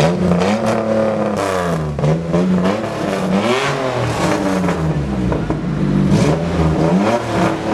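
Off-road race car's engine revved repeatedly in place, its pitch rising and falling in a run of blips about every second or so.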